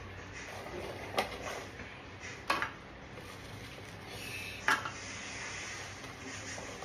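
Three sharp knocks and clinks against a black frying pan as fried coriander fritters (kothimbir vadi) are set into it, spread over the first five seconds.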